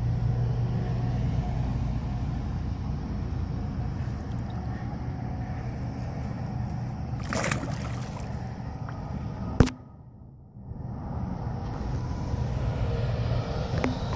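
Steady low rumble throughout, with a brief splash about seven and a half seconds in as a catfish on a rope stringer goes into the river, and a single sharp click about two seconds later.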